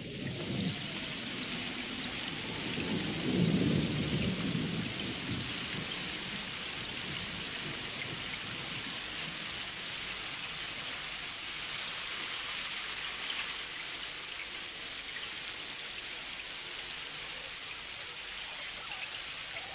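Heavy rainstorm: steady pouring rain, with a low rumble of thunder swelling about three to four seconds in and then fading, leaving the rain alone.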